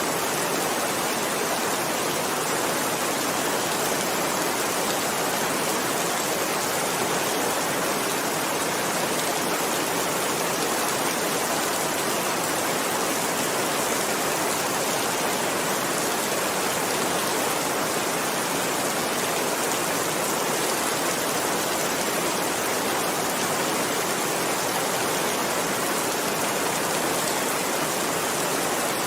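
Heavy rain falling steadily, an even hiss with no thunder or other breaks.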